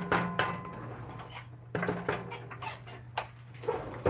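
Silicone spatula scraping and tapping against a metal pot as noodles and vegetables are tossed: a string of small scrapes and knocks, with a sharper knock near the end, over a steady low hum.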